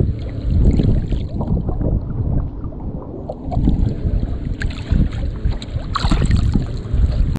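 Water sloshing around a hand holding a snook in the river beside a boat to revive it, with wind rumbling on the microphone. About six seconds in, a sharper splash as the fish kicks at the surface.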